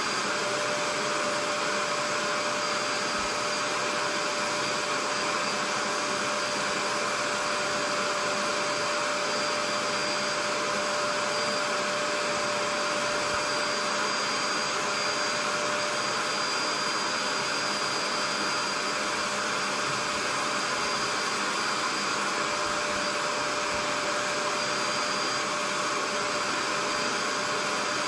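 Portable upholstery spot cleaner running steadily: its suction motor drones with one steady tone over a hiss, and the hand nozzle on the hose draws the cleaning liquid back out of the recliner's fabric.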